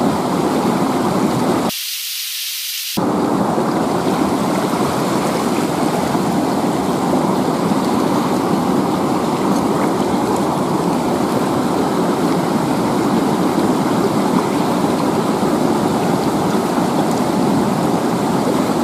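River water rushing over rocks, a loud steady hiss. About two seconds in, it briefly thins to a high hiss for just over a second before the full sound returns.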